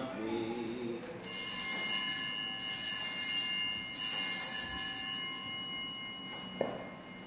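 Altar bells (a cluster of small sanctus bells) rung at the elevation during the Eucharistic Prayer of the Mass. They start suddenly, shimmer for about four seconds with many high ringing tones, then die away.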